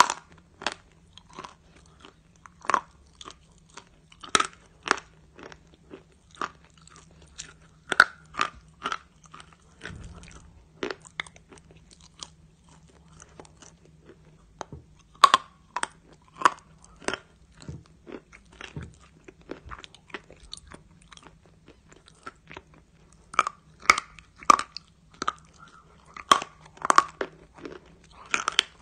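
Close-up crunching and chewing of a piece of chalk in the mouth: a string of sharp, crisp crunches, thinning out in the middle and coming thick and fast again near the end.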